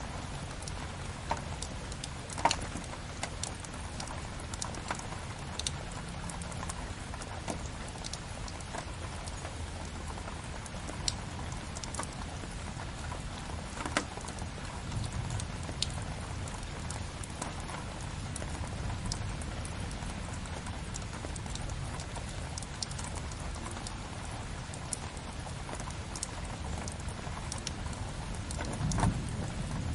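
Steady rain together with a crackling wood fire, whose sharp pops and snaps come every second or two over the even hiss. A low rumble swells briefly near the end.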